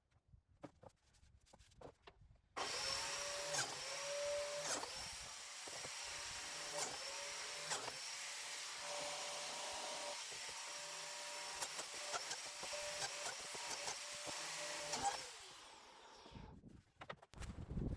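An electric power tool starts up a few seconds in and runs on pine for about twelve seconds, its motor pitch dipping briefly again and again as it is pushed into the work, then winds down with a falling pitch.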